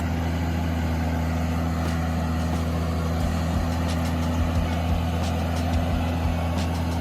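Heavy diesel engine of a forestry machine running at a steady speed, with a few light knocks scattered through.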